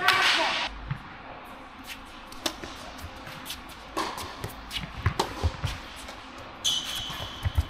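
Tennis ball struck by rackets and bouncing on an indoor hard court, each hit echoing in the hall. A serve comes about four seconds in, followed by a quick run of hits and bounces. A high steady squeal is heard near the end.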